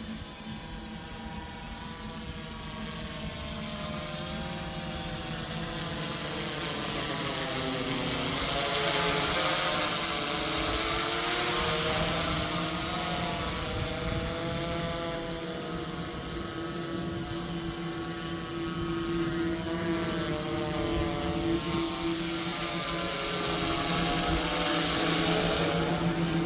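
Quadcopter drone's electric motors and propellers buzzing in flight, several tones wavering up and down in pitch as the motor speeds change. It grows louder over the first several seconds and again near the end.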